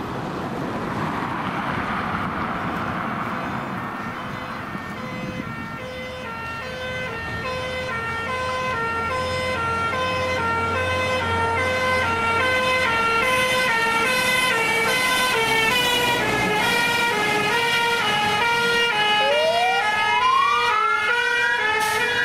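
Scania fire engine's two-tone siren alternating between a high and a low note, growing louder as the appliance approaches, over its engine and road noise. Near the end a slow rising-then-falling wail siren sounds along with it.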